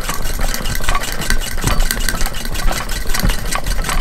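1863 Willcox & Gibbs hand-crank chain-stitch sewing machine running as it stitches through two layers of muslin: a fast, even metallic clicking from the needle bar and mechanism, with a couple of heavier knocks.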